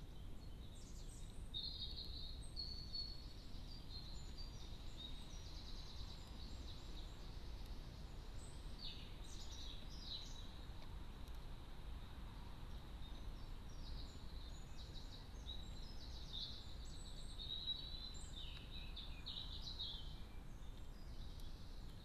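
Small songbirds singing faintly, with repeated short phrases and fast trills, over a steady low rumble and hiss.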